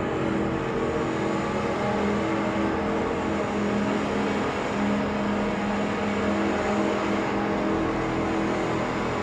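Slow ambient drone music: sustained low tones that swell and fade over a steady hiss, processed through a Mutable Instruments Clouds granular texture module and played back from tape at half speed.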